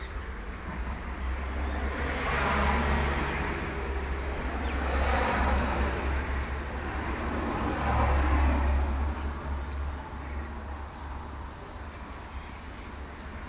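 Road traffic: a steady low rumble with three vehicles passing in turn, each swelling and fading.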